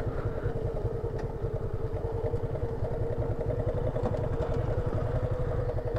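Motorcycle engine running steadily at low revs as the bike rolls slowly, heard from the rider's seat.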